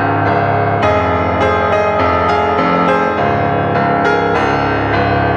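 Background piano music, notes struck in a steady flowing pattern.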